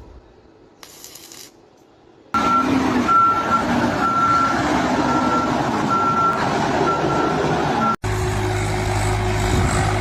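After a brief quiet start, a heavy vehicle's engine starts running loudly with a repeating reversing beep, about one beep a second. About eight seconds in the sound cuts off abruptly, and a different engine drone with a low hum takes over.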